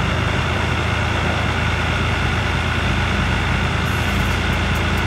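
Ferrari 550 Maranello's V12 engine idling steadily while the car stands still.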